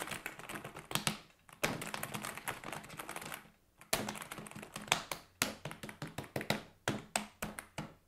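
Typing on a Cherry KC 1068 membrane keyboard: quick runs of key clicks, broken by short pauses about a second and a half in and near four seconds, then slower, separate keystrokes toward the end.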